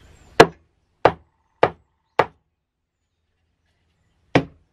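Homemade wooden mallet with a block head knocking against something hard: four sharp wooden knocks about half a second apart, then a pause and two more in quick succession near the end.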